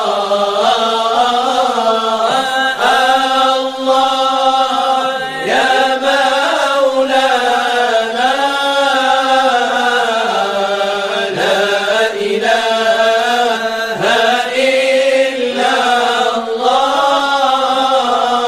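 A solo voice chanting an Arabic religious chant without instruments, holding long notes that bend and turn in ornamented melodic lines.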